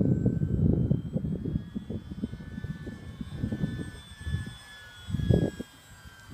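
Parkzone FW-190 RC warbird's electric motor and propeller whining in flight, a thin high tone that slowly shifts in pitch as the plane moves. Under it a low, gusting rumble, loudest in the first two seconds and again briefly just past five seconds.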